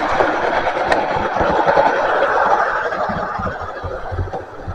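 Hornby OO gauge Class 43 HST model train running on the layout track: a steady running noise of motor and wheels on rail, louder for the first three seconds and then fading.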